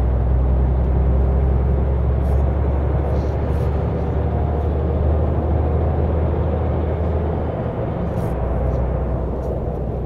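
Cab noise of a MAN TGX 500 hp semi-truck under way: the steady low drone of its straight-six diesel mixed with tyre and road noise, easing a little about eight seconds in.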